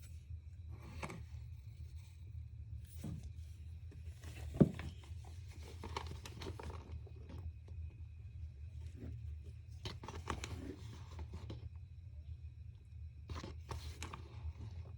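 Spoon scraping and tapping in a mug in short, irregular strokes while the mug-cake mix is spooned in and stirred, with one sharp knock about four and a half seconds in. A steady low hum runs underneath.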